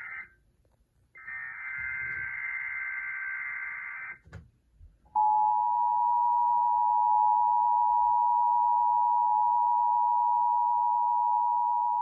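Emergency Alert System alert tones: the tail of one SAME digital header burst, then after a short gap a second burst of the screeching data tones lasting about three seconds, a click, and from about five seconds in the steady two-tone EAS attention signal. It heralds a severe thunderstorm watch alert.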